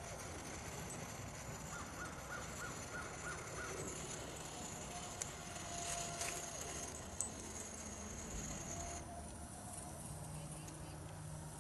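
MSR WhisperLite white-gas stove burning after priming, a steady hiss whose high part drops away about nine seconds in. A bird gives a quick run of about eight chirps early on, and there are a few faint clicks.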